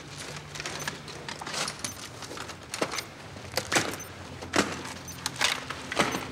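A low, steady drone with a scattering of sharp clicks and metallic clinks, about half a dozen spread across the few seconds.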